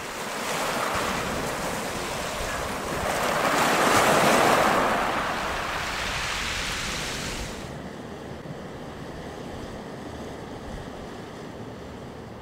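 Wind and choppy sea water with waves breaking, plus wind buffeting the microphone. The rushing noise is loudest about four seconds in, then drops abruptly just before eight seconds to a quieter, duller wash.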